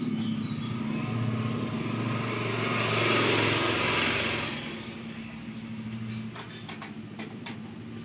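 A motor vehicle passing, swelling to a peak about three to four seconds in and fading away, over a steady low hum; a few light clicks near the end.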